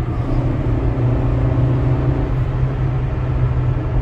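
Honda Logo 1.3's four-cylinder engine and tyre noise heard from inside the cabin while driving, a steady low drone.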